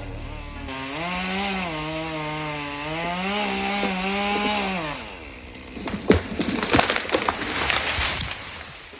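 Chainsaw running at full throttle through the back cut, its pitch dipping and recovering under load, then stopping about five seconds in. Then sharp cracks of wood and a rush of branches as the cut pine top breaks away and falls.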